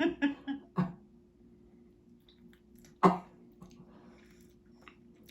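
A man coughing with food in his mouth: a few short coughs in the first second and one loud cough about three seconds in, over a faint steady hum.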